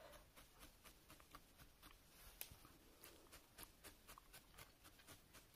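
Faint, irregular ticks of a felting needle jabbing into wool on a burlap-covered felting pad, about three a second.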